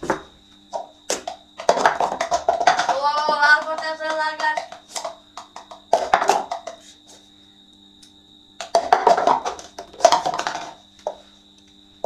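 Plastic cups clacking and rattling as they are lifted, stacked and set down on a table, in irregular bursts of sharp clicks. A voice calls out with a rising pitch about three seconds in.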